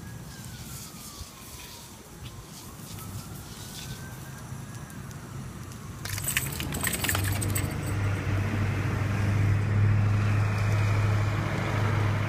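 A faint siren wails slowly up and down over the first half. About six seconds in comes a brief jangle. Then a motor vehicle's engine hum sets in and grows louder, the loudest sound here.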